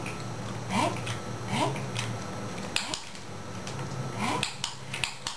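Light scattered clicks and taps: a Border Collie puppy's paws on a wooden floor and a wicker basket as it takes treats from a hand. Four or five short rising squeaky sounds.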